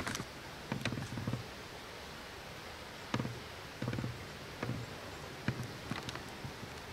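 Footsteps crunching through dry leaf litter on the forest floor: a handful of slow, uneven steps.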